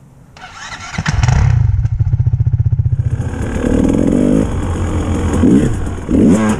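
Dirt bike engine comes in loud about a second in and runs with a steady, even beat. From about three seconds in it revs up and down repeatedly, with a hiss over it.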